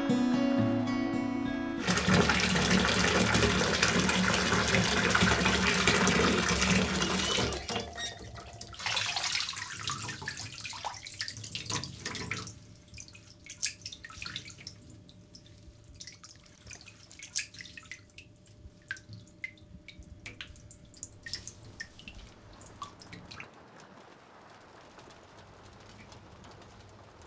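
An acoustic guitar chord rings out briefly, then water runs loudly into a bathtub for about six seconds. It tapers off into scattered drips and small splashes that fade to a quiet room.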